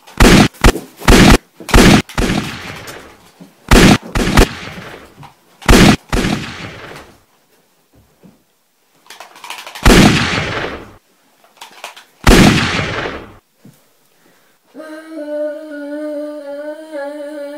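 Gunshot sounds: several quick bursts of two to five shots, then two single shots a couple of seconds apart, each ringing out for a second or more. After a short pause, one steady hummed note is held through the last few seconds.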